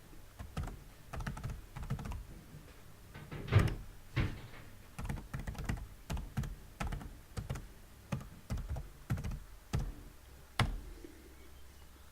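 Typing on a computer keyboard: irregular runs of keystrokes, as when entering login details, with a heavier knock about a third of the way in and another near the end.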